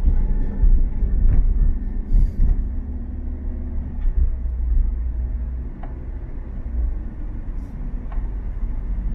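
Car interior noise while driving at low speed: a steady low rumble of engine and tyres on the road heard from inside the cabin, with a few faint clicks.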